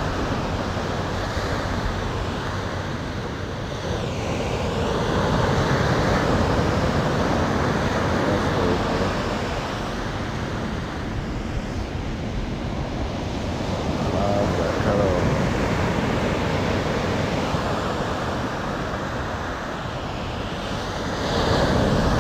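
Ocean surf washing onto a sandy beach: a steady rushing noise that swells and eases as each small wave breaks and runs up the sand.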